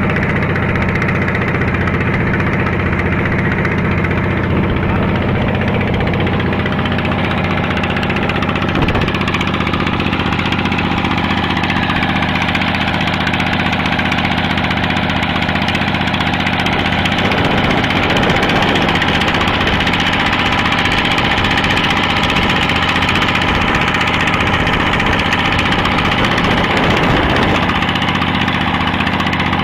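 Small fishing boat's engine running steadily under way, loud and unbroken, with water rushing past in the wake.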